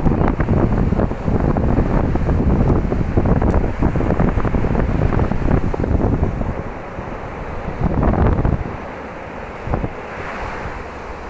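Wind buffeting the microphone at the seashore, with surf behind it. The loud rumble eases after about six seconds, then swells again in a gust around eight seconds.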